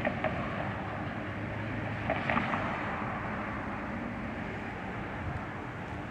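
Steady street traffic noise: a low hum of cars, with a couple of brief sharp clicks, one at the start and one about two seconds in.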